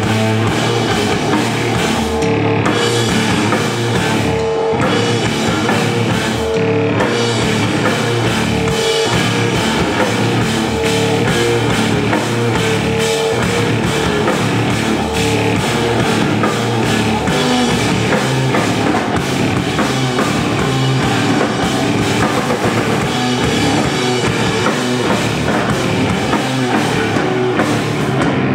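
Live instrumental rock band playing loudly and steadily: drum kit, electric bass guitar and a clarinet carrying the lead line.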